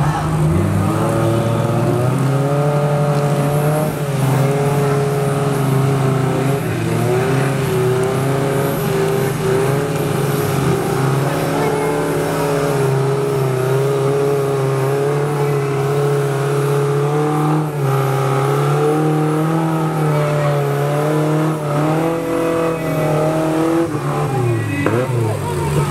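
Off-road buggy's engine revving hard and held high as it claws up a steep mud bank, its pitch wavering with wheelspin; the revs drop and pick up again near the start and near the end.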